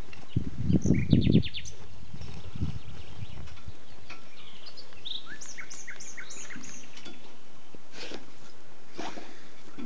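Small songbirds chirping, a run of short, quick falling notes in the middle, with a low rumble of wind or handling on the microphone in the first second and a half.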